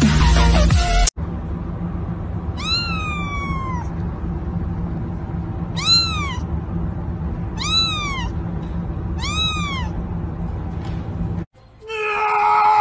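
A ginger kitten meowing four times, each meow rising then falling in pitch, the first one longer and drawn out, over a steady low hum. Music cuts off about a second in, and a different sound with several held tones starts near the end.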